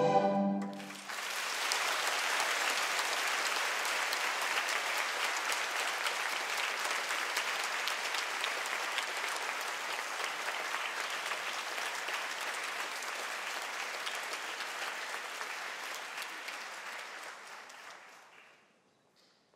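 Orchestral ballet music ends on a final chord, then an audience applauds steadily for about seventeen seconds, the clapping fading away near the end.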